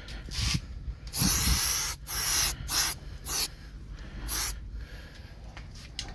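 Aerosol spray-paint can spraying a light coat of colour in a series of hissing bursts, each from a fraction of a second to about a second long, with short breaks between passes.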